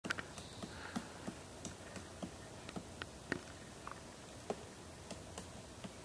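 Woodpecker pecking at dead wood while hunting grubs: single sharp taps at an uneven pace, two or three a second, not a drumming roll.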